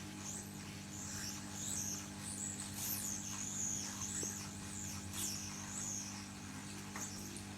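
Hot-air rework station running on low airflow, heating the board from below to melt the solder, with a steady low hum. Over it, faint high squeaky chirps waver up and down throughout.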